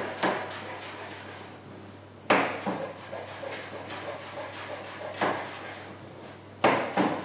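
Kitchen knife chopping flat-leaf parsley on a chopping board: irregular strikes of the blade against the board, a second or more apart, the sharpest about two seconds in and near the end.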